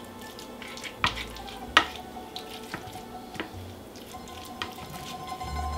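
Spoon pressing a creamy casserole mixture down in a ceramic baking dish: soft wet scraping with scattered clicks of the spoon against the dish, the two sharpest about one and nearly two seconds in.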